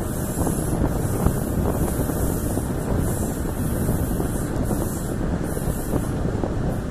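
A passenger train running steadily along the track, heard from an open window, with wind buffeting the microphone throughout.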